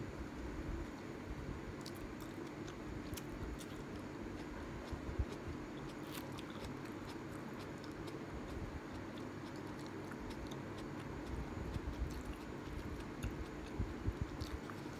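A person chewing a mouthful of ramen noodles, with small wet mouth clicks scattered through, over a steady low hum.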